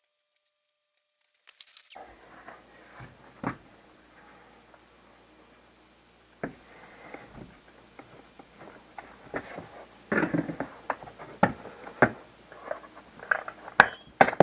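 Rubber tire of a Jenex V2 Aero 150 roller ski wheel being forced off its rim by hand, the second bead being worked free: scattered rubbing, creaking and knocks starting about two seconds in and growing busier and louder over the last few seconds.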